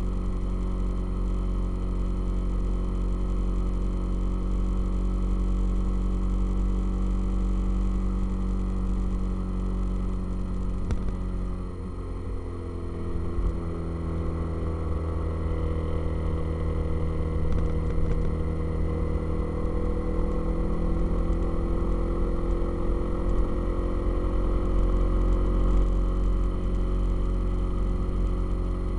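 Motorcycle engine running under way. Its note changes and the level dips about twelve seconds in, then the pitch rises gradually over the next several seconds as the bike picks up speed, and holds steady near the end.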